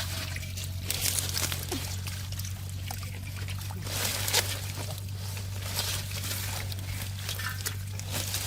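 Water trickling and sloshing with irregular small splashes as hands work through shallow water, over a steady low hum.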